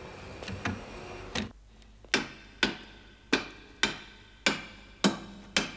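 Hammer blows on metal, about one every half second to two-thirds of a second, each ringing briefly. They begin about two seconds in, after a softer knock.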